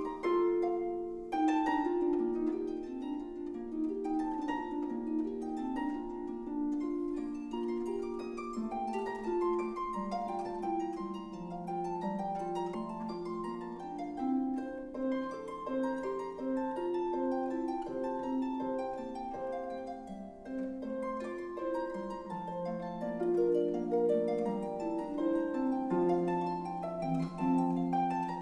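Instrumental background music: a continuous flowing run of plucked string notes.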